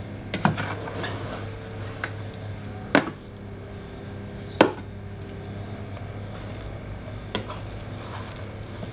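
A rice paddle turning and fluffing freshly cooked rice in an electric rice cooker's inner pot, knocking sharply against the pot four times: near the start, about three seconds in, louder about a second and a half later, and once more near the end. A steady low hum runs underneath.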